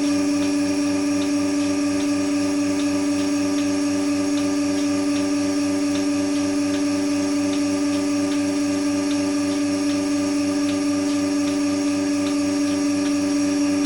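Milking machine running: a steady hum from the vacuum pump and motor with the pulsator's regular ticking over it.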